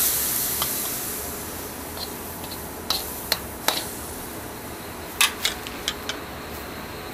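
Water poured into a hot wok hisses and dies away over the first second. Then a metal spoon knocks against the metal wok in a few sharp clicks while the food is stirred, about three in the middle and a closer cluster near the end.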